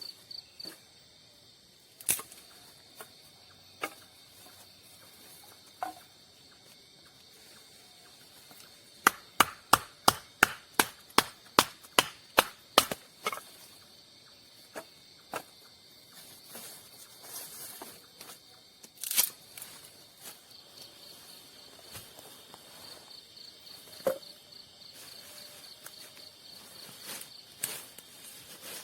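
A quick run of about fifteen sharp knocks, roughly four a second, with a few single knocks before and after. A cricket's pulsed high chirping starts and stops behind them in the night forest.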